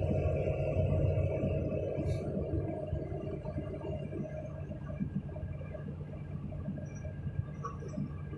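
Excavator's diesel engine and hydraulics running with a steady hum, heard from inside the cab, slowly getting quieter as the bucket is lowered.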